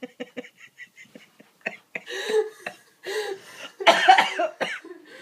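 A person's laughter: a quick run of laughs trails off, and after a short lull come three breathy bursts of laughter, the last about four seconds in and the loudest.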